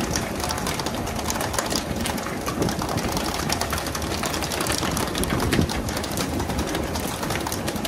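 Pole-and-line tuna fishing boat at work: a steady engine drone and rushing water spray under many irregular knocks and slaps on the deck.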